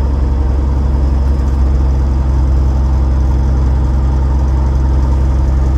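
Van's RV-10's piston engine and propeller running steadily at low power after landing, heard from inside the cabin as a loud, even low drone with a fast pulsing beat.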